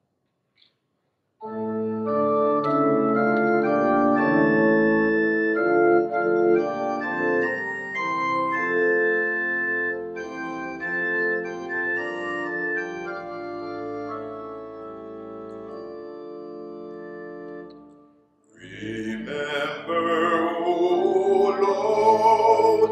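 Organ playing a slow passage of held chords, which ends about eighteen seconds in. Just after, a man's voice starts singing with a wavering pitch.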